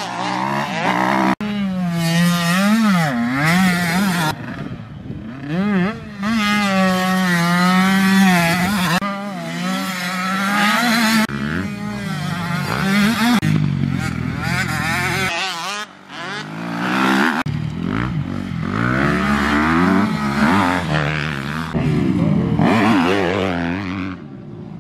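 Motocross bike engines revving hard through a corner, the pitch swinging up and down as the riders work the throttle and shift. There are several passes one after another, with sudden changes between them.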